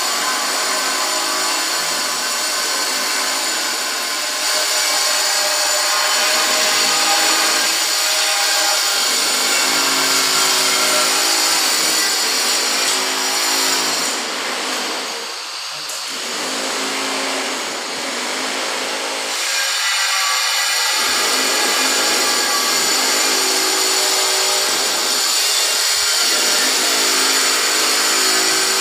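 Steady machine noise, a continuous hiss with a high whine like a power tool running, unbroken apart from a brief dip a little past the middle.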